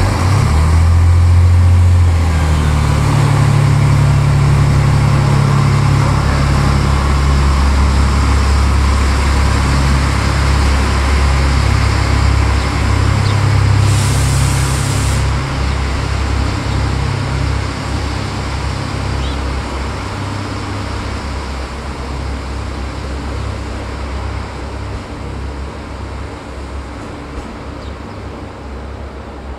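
Irish Rail 29000 class diesel multiple unit pulling away, its underfloor diesel engines running under power with a deep drone. The sound is loudest in the first few seconds and fades gradually as the train moves off.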